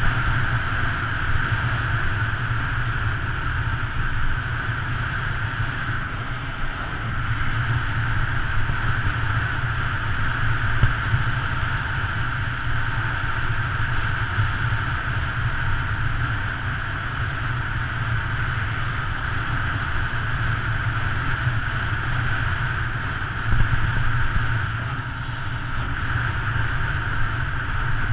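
Steady rush of wind over a bike-mounted action camera, mixed with the rolling hum of road-bike tyres on asphalt at descending speed, with a deep rumble underneath.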